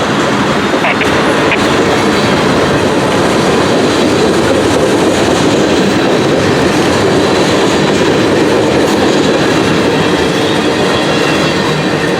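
A freight train's cars rolling past: a loud, steady rumble and clatter of steel wheels on the rails, the cars largely empty intermodal platforms.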